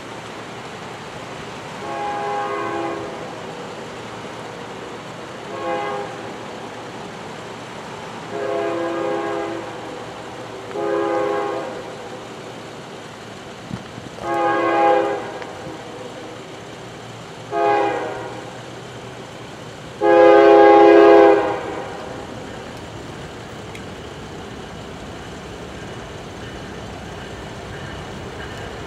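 Diesel freight locomotive's air horn, Union Pacific SD70M 3827 leading the approaching train, sounding seven chord blasts of mixed length, two of them short, the blasts growing louder as the train nears and the last the longest and loudest. A steady low rumble of the train lies underneath.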